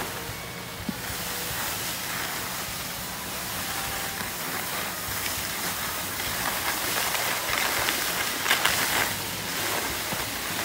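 Steady rushing hiss of skis sliding over packed snow, with a few brief louder scrapes about three quarters of the way through.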